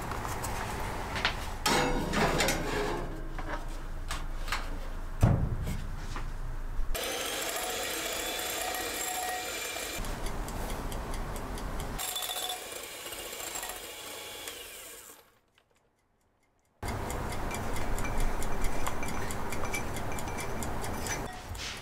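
Kitchen sounds of making a pound cake, cut together from short shots: a few sharp knocks and clicks, then a steady mechanical whirr with a faint hum. About two-thirds of the way through the sound drops out for a second and a half, then scraping and rubbing with small clicks.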